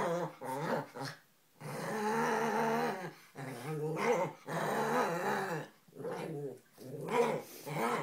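Dogs play-growling: a series of long, wavering growls, most about a second long, with short breaks between them.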